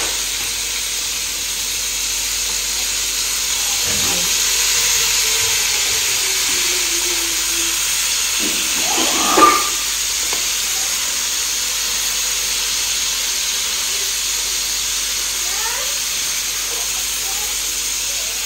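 Stuffed pointed gourds (parwal) sizzling as they shallow-fry in oil in a frying pan: a steady frying hiss, with one brief louder sound about halfway through.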